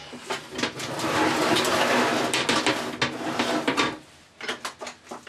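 A large black metal plate sliding and scraping over the frame of a stepper-motor XY table as it is taken off, a rough scrape lasting about four seconds. A few light knocks and clicks follow near the end.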